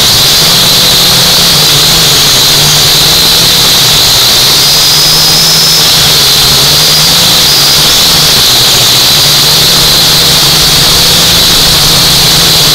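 UDI U818A quadcopter's four small brushed motors and propellers whining steadily, heard close up through the drone's own onboard camera, with a constant high whine over a lower hum. The pitch wavers slightly as the drone manoeuvres.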